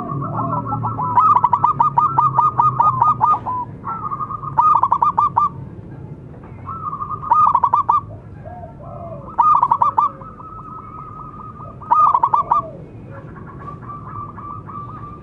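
Zebra dove (perkutut) singing: five loud phrases of fast, rolling staccato coos, the first the longest at about two seconds, each followed by a short pause, then a fainter phrase near the end.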